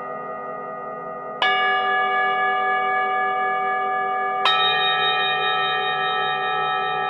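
Singing bowls ringing together with a slow pulsing wobble, a new bowl struck twice, each strike adding brighter tones that sustain over the others.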